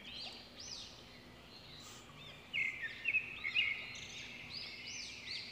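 Small birds chirping in the background: a rapid run of short, high, arching chirps that grows busier about halfway through, over a faint steady hum.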